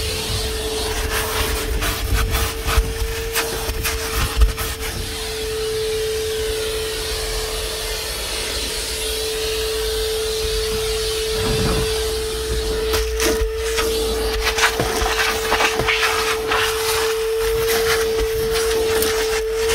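DeWalt 9-gallon, 5-horsepower wet/dry shop vacuum running with a steady whine, not very loud for a shop vac. Many short scrapes and clicks as the nozzle rubs over surfaces and picks up debris.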